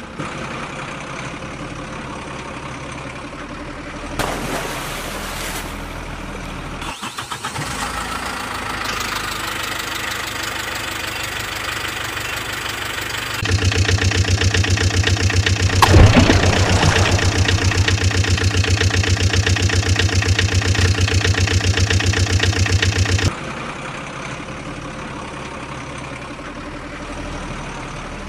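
Truck engine sound effects running and throbbing steadily, in edited segments that switch abruptly. A louder, faster-pulsing stretch of about ten seconds sits in the middle, with a brief falling glide near its start.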